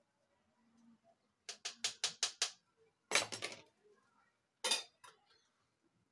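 Serving spoon knocked about six times in quick succession against the cooking pot while dishing out rice. It is followed by a short clatter of pot and plate, and one more clank near the end.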